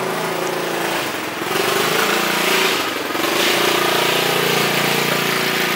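A small engine running steadily, a little louder from about one and a half seconds in.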